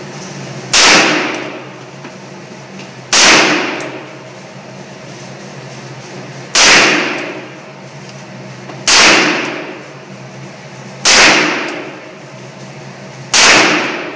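Six shots from a Ruger Super Blackhawk .44 Magnum single-action revolver, fired one at a time about two to three seconds apart, each with a ringing, echoing decay of about a second.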